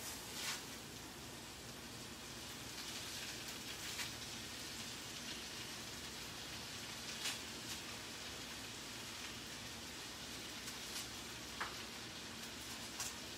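Vegetables sizzling faintly in a pan on the stove, a steady hiss, with a few light taps and rustles as handfuls of kale are dropped in.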